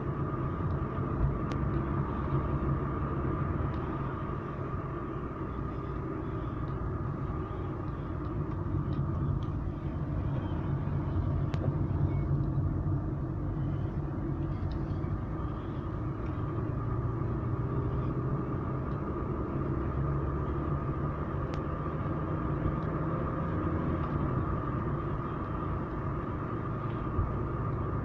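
Car driving, heard from inside the cabin: a steady low rumble of engine and tyres on the road, with a faint steady high hum.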